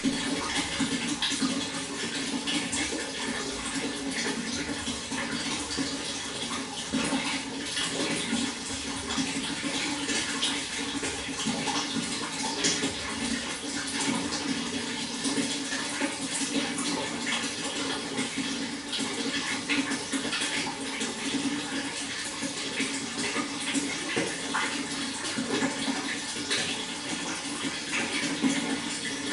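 Water flowing steadily, a continuous rush with small irregular splashes and gurgles throughout.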